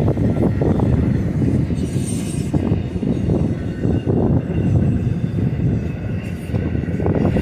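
Empty BNSF intermodal spine cars of a freight train rolling past on the mainline: a steady, loud rumble of steel wheels on rail, broken by occasional knocks and clanks from the empty cars.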